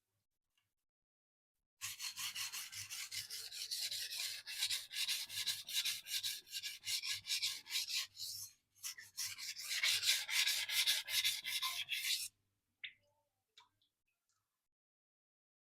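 Sujihiki knife blade stroked rapidly back and forth on a sharpening stone, steel grinding on stone in quick, even strokes of about four a second. It starts about two seconds in, pauses briefly, runs again and then stops.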